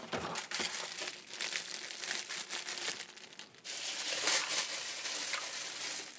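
Plastic food packaging, a packet of smoked duck, crinkling and crackling as it is handled, then a kitchen tap running steadily into the sink from about three and a half seconds in.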